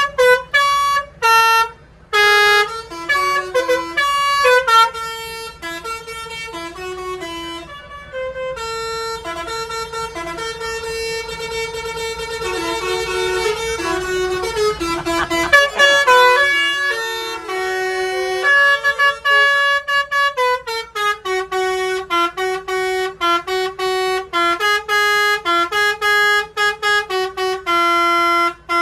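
Telolet bus horn, a bank of tuned air horns, playing a long melody of changing notes: short quick notes at first, longer held notes in the middle, then quick notes again. A low rumble underneath stops about halfway through.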